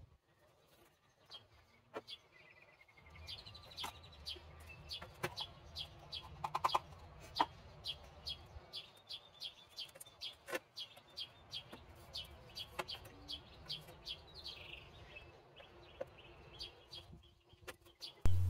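A bird calling repeatedly in short, high chirps, about two to three a second, which fade out near the end.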